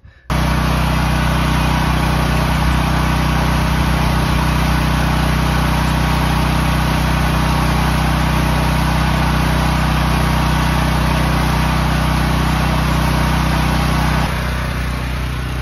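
Mastercraft 5500-watt portable gasoline generator's engine running steadily while feeding power to the house through its plugged-in cable, a little quieter near the end.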